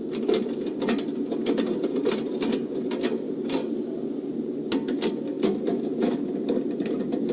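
Irregular light metallic clicks and taps of a screw being worked into a sheet-metal vent cap, over a steady low hum.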